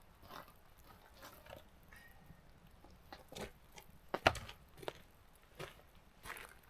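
Sticks and kindling crackling and snapping in irregular short cracks, with one louder snap about four seconds in.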